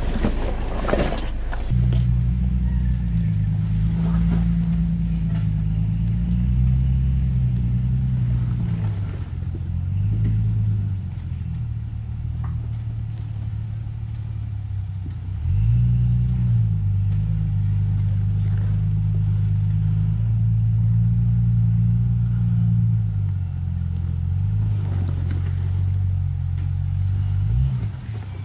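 Off-road 4x4's engine working over a slick trail, its revs rising and falling under load, with a sharp rev about halfway through and a quick blip near the end.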